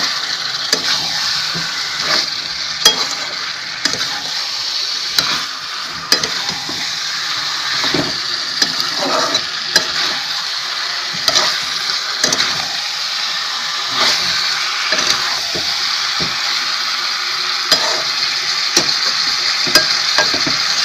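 Chicken, potato and onion sizzling in oil in a kadai while a metal spatula stirs and scrapes through them, with irregular clicks and knocks of the spatula against the pan. This is the kosha stage of the curry, the pieces being fried down with steady stirring.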